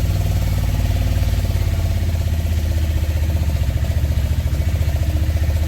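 Auto-rickshaw (tuk-tuk) engine running steadily during a ride, a low hum with a fast, even pulse.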